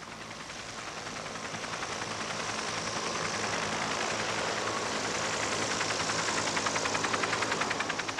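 Huey-type military helicopters' turbine whine and rapid, rhythmic rotor-blade beat as one passes low over the landing field. It swells over the first few seconds and fades near the end.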